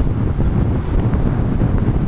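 Wind buffeting the camera's microphone as a Lamborghini Gallardo drives along: a loud, ragged low rumble with no clear engine note standing out.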